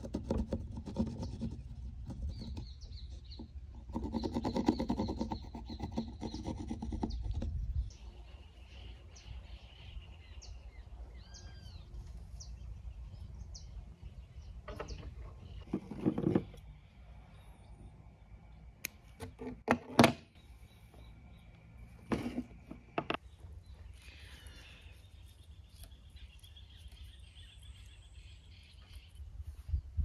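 Hands working at a wooden workbench: a pencil scratching marks on a wooden stick, with rubbing and handling of twine and a few sharp knocks on the wood. Small birds chirp briefly in between.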